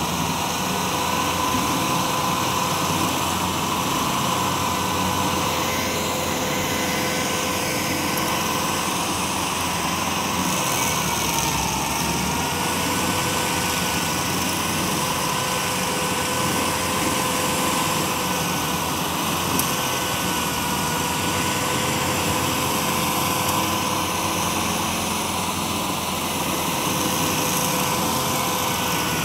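Tracked stump grinder running hard, its engine and spinning cutting wheel grinding into a stump with a steady whine over dense mechanical noise. The whine dips briefly in pitch about eleven seconds in.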